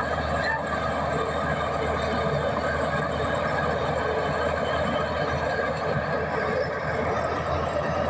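Komatsu D61EX crawler bulldozer working under load, its diesel engine and steel tracks running together as the blade pushes a heap of soil. The noise is steady and dense, with a low hum beneath and no break.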